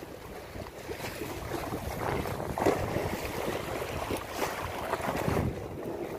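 Sea waves washing against the breakwater rocks, with wind buffeting the microphone; a couple of louder surges about two and a half and five seconds in.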